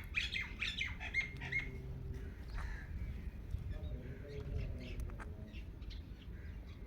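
Indian ringneck parakeet calling: a quick run of short chattering notes in the first second and a half or so, then only faint scattered chirps and clicks.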